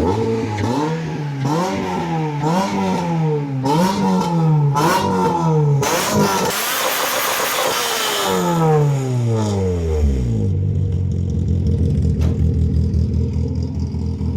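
VAZ-2108 (Lada Samara) car engine being blipped about five times in quick succession, then held at higher revs for a couple of seconds with a harsh rush of exhaust noise, before dropping back to a steady idle.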